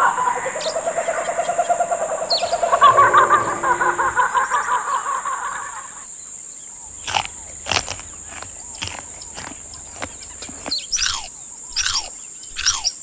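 Bird calls. Warbling, trilled calls fill the first half, then comes a run of quick chirps that fall in pitch, one or two a second, over a steady high-pitched whine.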